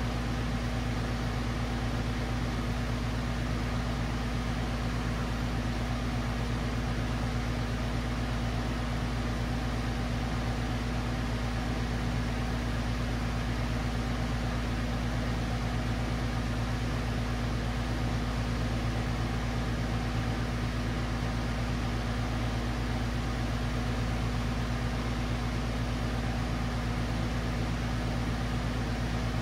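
Brazing torch flame burning steadily as an even hiss, with a low steady hum underneath, unchanging throughout.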